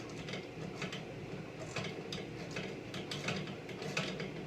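Ratchet wrench clicking in runs of quick ticks as a 5/8-inch bolt is cranked down tight.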